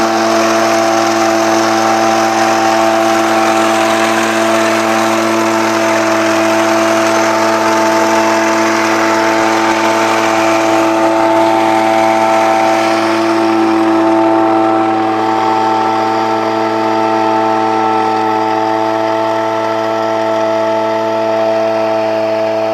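Small engine of a Sanyang-type two-person tea plucking machine running at a steady speed as the machine cuts along the tea bushes.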